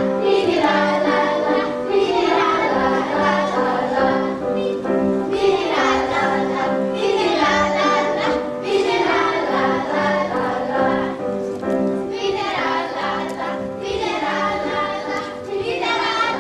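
A group of children singing a song together over a steady instrumental accompaniment, in short phrases of about two seconds each.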